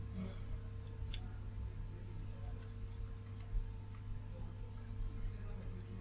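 Soldering iron melting solder onto the transistor and heatsink pins of a power supply circuit board: faint, irregular crackling and spitting ticks of rosin flux boiling off the joints, over a steady low hum.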